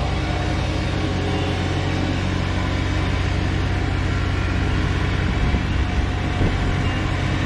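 Tractor engine running steadily while mowing and mulching down hay, with a few low bumps about three-quarters of the way through.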